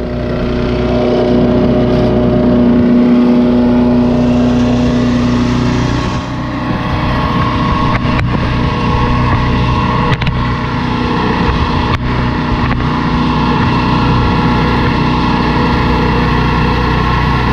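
LANDWORKS 7 HP wood chipper's gas engine running steadily, its tone shifting about six seconds in, with a few sharp knocks as limbs are fed through.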